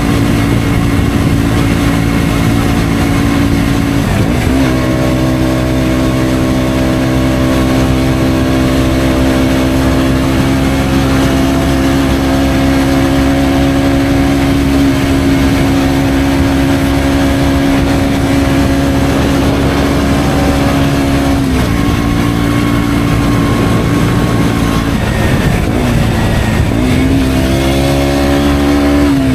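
KTM Duke 125's single-cylinder four-stroke engine through an Akrapovic exhaust, pulling at steady revs on the road. The pitch drops briefly about four seconds in and then holds steady for a long stretch. It shifts again past twenty seconds, then dips and climbs as the revs rise near the end.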